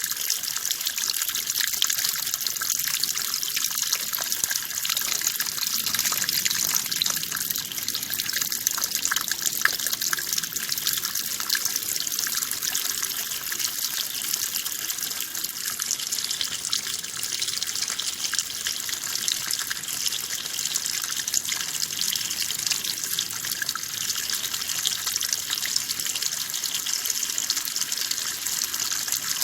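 Running water pouring steadily in an even, hissy rush, with no breaks or changes.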